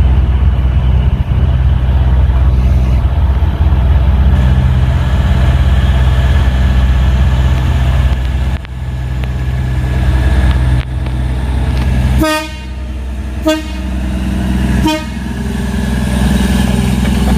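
Solo Express diesel multiple unit's engines running with a steady low drone. About twelve seconds in its horn sounds three times, one longer blast then two short toots, as the departure signal.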